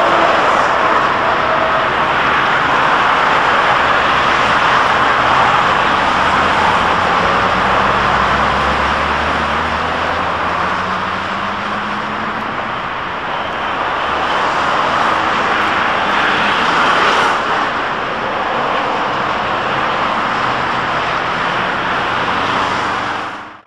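Steady roar of street traffic with trams passing, and an engine rising in pitch as a vehicle pulls away about ten seconds in; the sound cuts off abruptly at the end.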